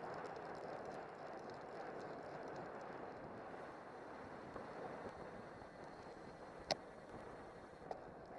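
Steady rushing ride noise of a road bike at race speed in a pack, wind and tyre noise heard through a camera mounted on the bike. A sharp click comes about two-thirds of the way through, and a smaller one near the end.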